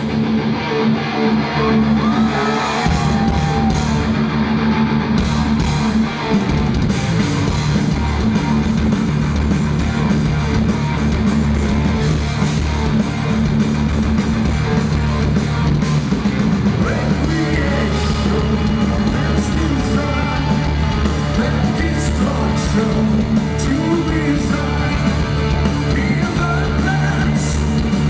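Heavy metal band playing loud and live: distorted electric guitars over bass and drums, with the low end filling in heavily about three seconds in.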